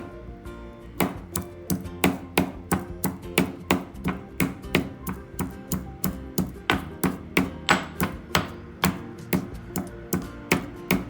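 Pestle pounding fresh ginger, tulsi leaves and whole spices in a mortar: a steady run of sharp strikes, about three a second, after a short pause near the start.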